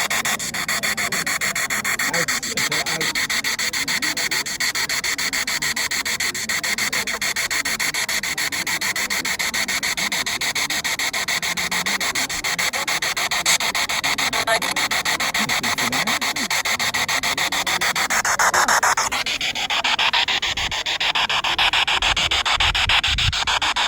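Spirit box scanning rapidly through radio stations: a steady, choppy static hiss with fast flickering cuts. About three-quarters of the way through it turns brighter and hissier, with a few low thumps near the end.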